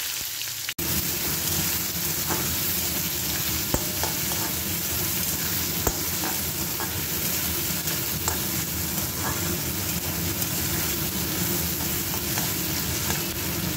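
Chopped onion and tomato sizzling steadily in hot oil in a metal kadai while a spatula stirs them, with a few light taps of the spatula against the pan.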